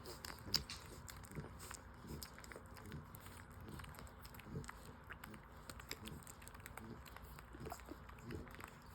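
Five-day-old French Bulldog puppies nursing: faint, irregular wet clicking and smacking of suckling.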